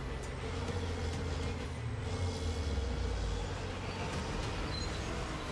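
Heavy earthmoving machine's diesel engine running steadily, with a deep, even low rumble.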